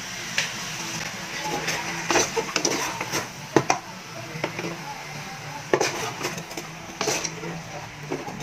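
Wooden spatula stirring and turning chunks of raw pork in an aluminium pot, scraping and knocking against the pot at irregular moments.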